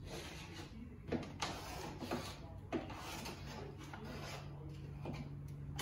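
Hand scraping on an upright wooden window sash: repeated rubbing strokes, with a few sharp knocks in the first three seconds.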